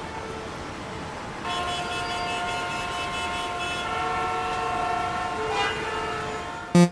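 A long, held horn chord of several steady tones, like a train horn, over a steady background hiss of city noise. The chord sounds from about a second and a half in, fades shortly before the end, and loud music strikes in right at the end.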